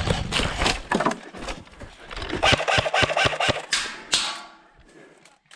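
Dry brush and branches crunching and snapping as a person pushes quickly through them. In the middle there is a fast run of sharp snaps, and the noise dies away near the end.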